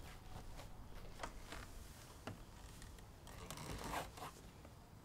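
Senko hanabi, a Japanese hand-held sparkler, crackling faintly with scattered tiny pops and a short fizzing swell about four seconds in.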